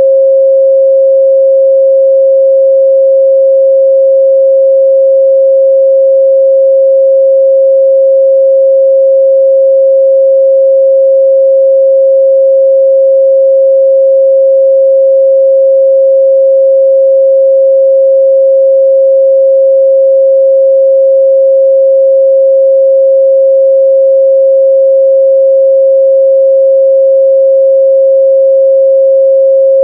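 A pure 538 Hz sine-wave test tone, held steady and loud with no change in pitch or level.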